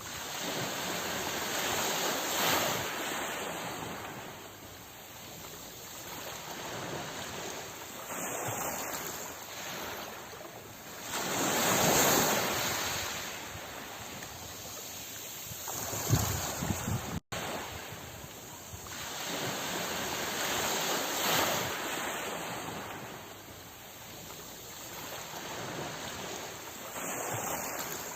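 Ocean waves breaking and washing up, the surf swelling and fading in slow surges several seconds apart, loudest about twelve seconds in. The sound cuts out for an instant a little past halfway.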